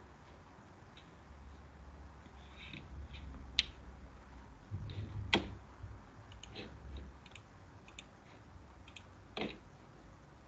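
A few faint, scattered clicks from a computer mouse. The clearest comes about five seconds in and another near the end, over a faint low hum.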